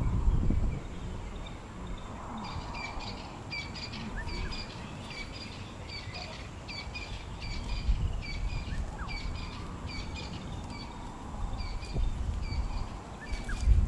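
A bird calling repeatedly, short high chirps at about two a second, starting a couple of seconds in and stopping a few seconds before the end. Under it there is a low outdoor rumble that swells briefly at the start and near the end.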